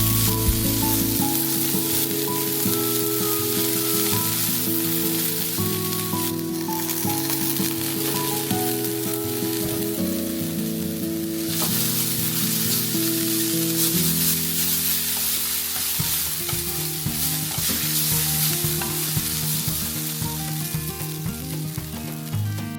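Food sizzling and frying in a hot pan, a steady crackling hiss that briefly dips a few times.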